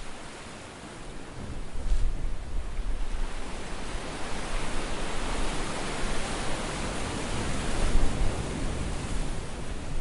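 Sea waves surging and washing against a breakwater: a rushing wash with a low rumble that swells up about a second and a half in and stays loud, cresting again near the end.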